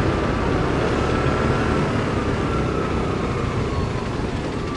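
Motorcycle running at low speed through city traffic: steady engine and road noise, with a faint high whine sliding slowly down in pitch.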